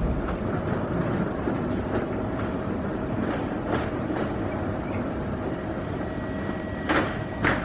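Steady rumble of a moving vehicle with faint repeated clicks and a thin steady whine, with two sharp knocks about half a second apart near the end.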